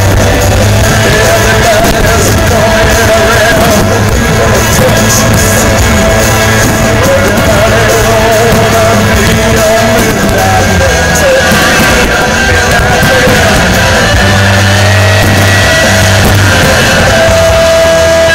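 Loud music with a vocal line and held bass notes, going on without a break.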